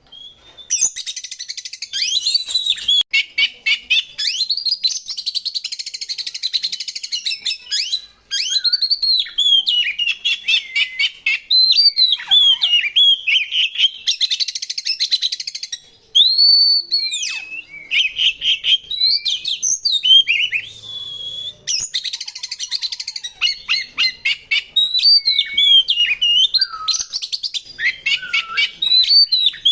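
Male oriental magpie-robin (kacer) singing loudly in a long, varied song. Clear whistled slurs and arching notes alternate with fast, harsh rattling phrases, the rough 'isian kasar' material that kacer keepers prize.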